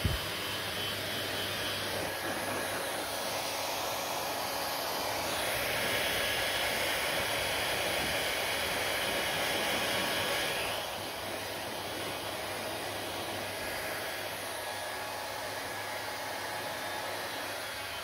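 Handheld hair dryer blowing steadily while hair is dried, a constant rushing whoosh of air and motor that grows louder for several seconds in the middle and then drops back.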